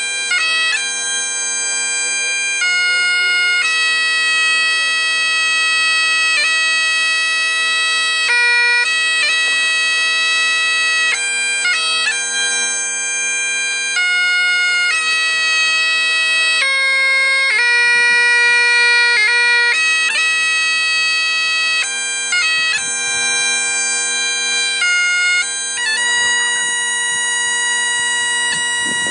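Great Highland bagpipes playing a slow melody of long held notes over the steady drones.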